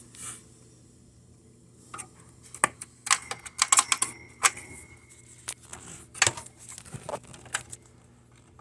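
Irregular small clicks and taps of a DDR2 RAM stick being handled and pushed at a motherboard memory slot, bunched together around the middle, with a faint brief ringing tone among them.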